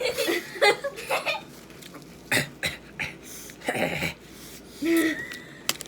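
A person gagging and coughing in several short bursts, a reaction to a disgusting mouthful of mixed condiments.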